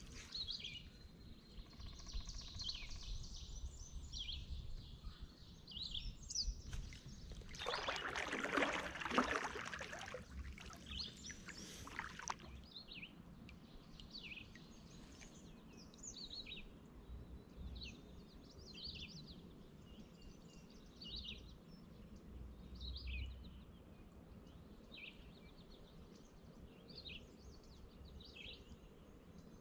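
Birds singing around a lake, short chirps repeating throughout. A kayak paddle swishes through the water about eight seconds in and again briefly near twelve seconds.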